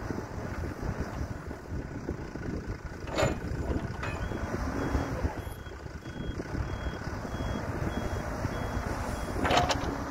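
Mecalac 12MXT wheeled excavator's engine running, with wind noise on the microphone. From about halfway through, a high reverse alarm beeps steadily as the machine backs away. Two sharp knocks sound, one about three seconds in and a louder one near the end.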